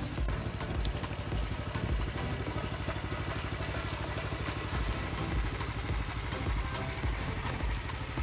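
Engine running with a low, uneven throb.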